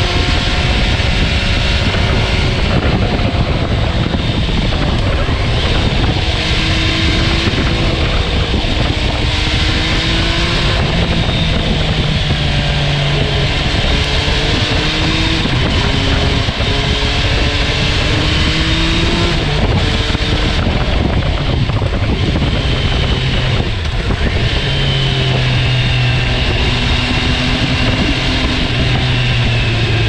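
MV Agusta Turismo Veloce Lusso's three-cylinder engine pulling hard, its pitch climbing and dropping again and again as it runs up through the gears, over steady wind rush on the microphone.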